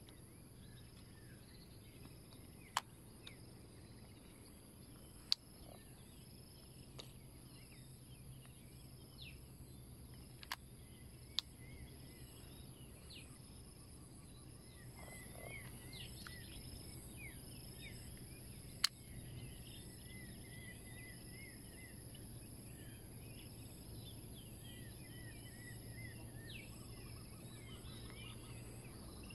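Faint lakeside ambience: birds chirping on and off, busier in the second half, over a steady high insect drone, with five sharp clicks scattered through, the loudest about two-thirds of the way in.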